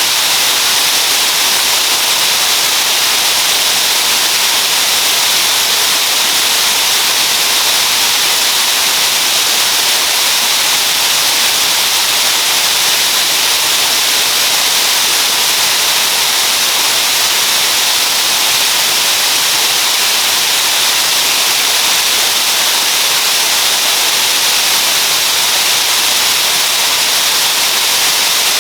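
Waterfall, water falling and rushing in a steady, loud hiss that does not change.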